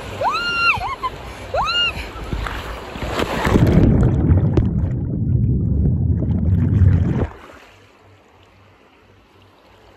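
A woman's high voice squealing three times in rising-and-falling calls as she goes down a water slide. Then a loud rushing, rumbling wash of water over the microphone for about four seconds as she splashes down, which cuts off suddenly.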